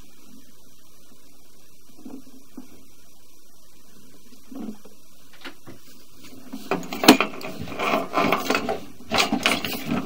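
Sewer inspection camera and its push cable being fed into a drain line over a steady low hum: from about two-thirds of the way through, a run of loud, irregular knocks and scraping as the camera head and cable bump through the fitting and pipe.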